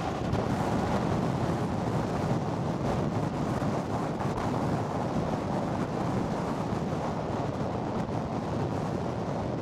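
Wind blowing across the microphone: a steady, deep rushing noise with no breaks.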